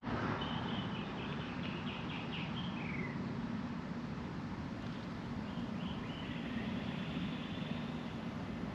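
A steady engine hum, with bird calls chirping over it twice.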